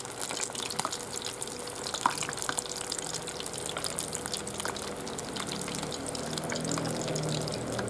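Starch-coated spottedtail morwong pieces deep-frying in a pot of hot oil: a steady dense sizzle full of small crackles and pops, the fish still mid-fry.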